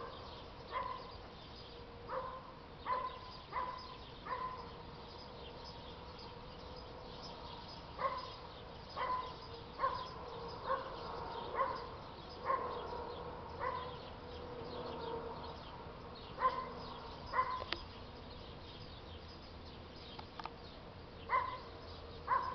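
A dog barking in short single barks, about one a second in runs, with pauses of a few seconds between the runs.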